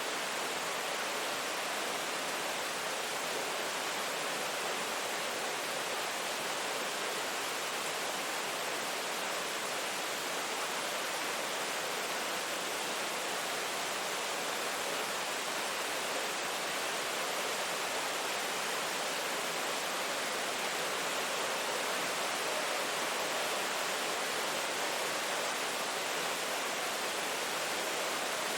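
Steady rain, an even, unbroken hiss without distinct drops or thunder.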